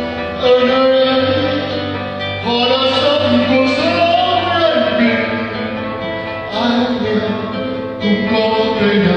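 A man singing into a microphone to acoustic guitar accompaniment, his long held notes rising and falling in phrases that break about 2.5, 6.5 and 8 seconds in.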